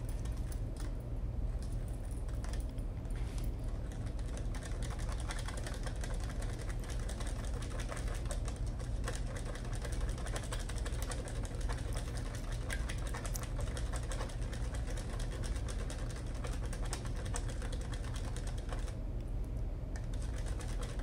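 A wire whisk beating a raw egg in a small bowl, clicking rapidly and steadily against the bowl's sides to blend an egg wash, over a steady low hum.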